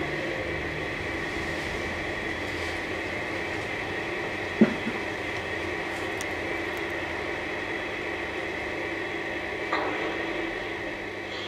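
Garden-railway model train running steadily with a continuous mechanical whir, and a sharp click about four and a half seconds in and a smaller one near the end.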